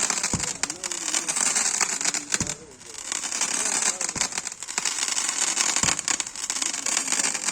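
A 25-shot crackling multi-shot firework cake firing. Its shots go off with a low thump about every one and a half to two seconds over dense, continuous crackling.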